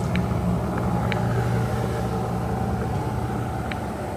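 Carnival cruise ship under way at sea: a steady low rumble with a rush of churning water from its wake, fading slightly towards the end.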